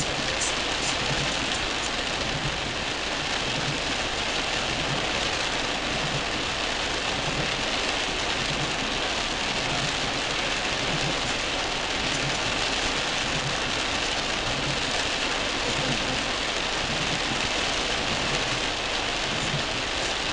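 Heavy rain falling steadily on a car's windscreen and roof, heard from inside the car, with a faint low pulsing underneath.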